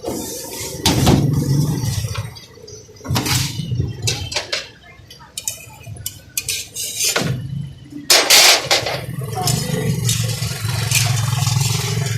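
Busy street-food stall ambience: background voices and traffic hum, with repeated clinks and clatter of utensils and a louder hissing rush about eight seconds in.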